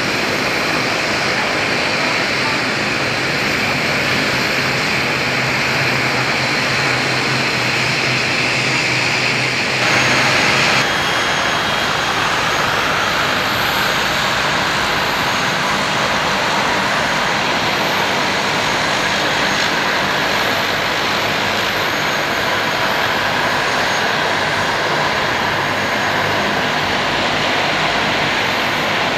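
Twin turboprop engines of a De Havilland Canada Dash 8-200 running steadily at taxi power: a loud, even whir with a hiss above it. The sound shifts abruptly about ten seconds in.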